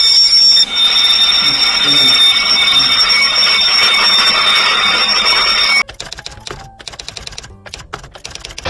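Fire alarm buzzer sounding a continuous high-pitched tone after the Simplex photoelectric smoke detector has been smoked and gone into alarm. It cuts off suddenly about six seconds in, followed by faint clicking.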